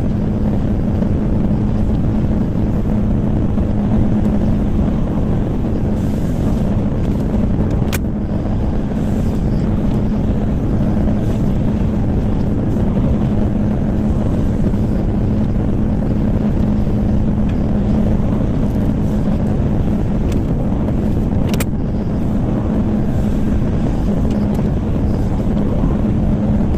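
Diesel engine of a 03-class wheeled excavator running steadily with a constant hum, with two sharp clicks, one about eight seconds in and one about twenty-two seconds in.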